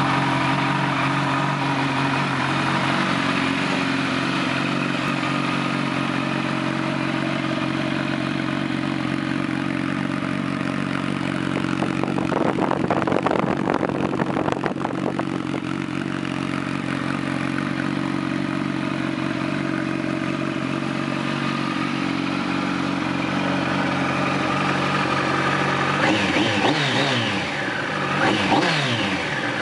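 Kawasaki ZX-10R's inline-four engine idling steadily through a Scorpion RP-1 GP exhaust, louder and rougher for a few seconds around the middle, then revved in a few quick throttle blips near the end.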